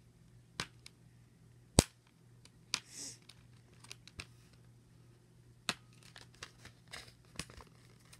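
A toy's stiff paper-and-card packaging being worked at by hand, giving scattered sharp snaps and clicks, the loudest about two seconds in, with a short tearing sound around three seconds.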